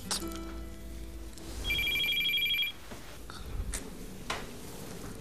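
Telephone ringing: an electronic trilling two-tone ring lasting about a second, starting about two seconds in and coming again right at the end.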